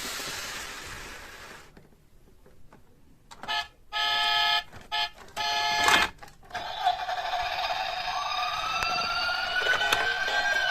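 A hiss that fades over the first two seconds, then a run of short electronic chime tones, then an emergency-vehicle siren that starts with a steady tone and wails slowly upward in pitch from about eight seconds in.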